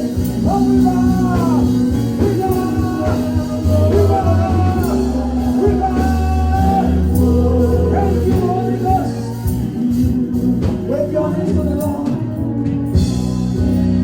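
Gospel worship music: a singer carrying a melody over a live band with a steady bass line.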